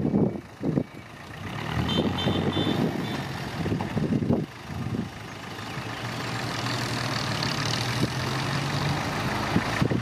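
Old tipper dump truck's engine running steadily while its raised bed lowers after dumping soil. A few short high beeps come about two seconds in.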